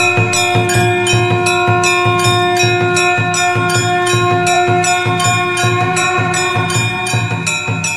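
Temple bells rung rapidly and continuously, about three strikes a second, their ringing overlapping into a steady, many-toned ring.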